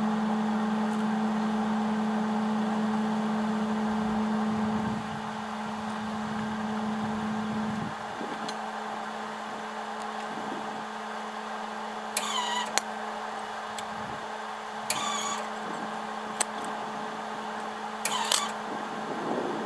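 Arc welder's steady electrical hum, dropping in level about five seconds in and again about eight seconds in. Three short metallic clinks with a ringing tail follow, in the second half.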